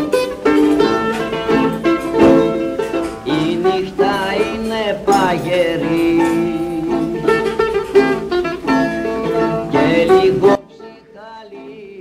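Background music, loud and dense until it drops suddenly to a much quieter passage about ten and a half seconds in.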